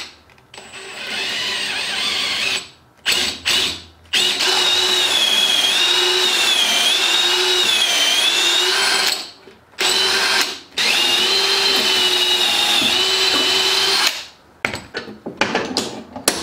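Makita cordless drill boring slowly through a rosewood plane handle, running in several trigger pulls: a long run of about five seconds and another of about three, with short blips near the start and end. Its whine wavers in pitch as the speed and load change.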